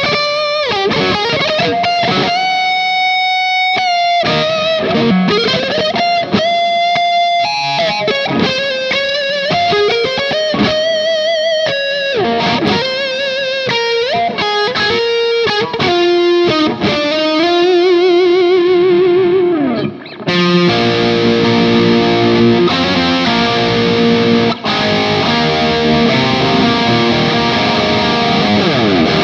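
ESP LTD EC-1000 Deluxe electric guitar with EMG active pickups played through distortion: a lead solo of single held notes with string bends and vibrato. About twenty seconds in it breaks off briefly and turns to a fuller, denser sound.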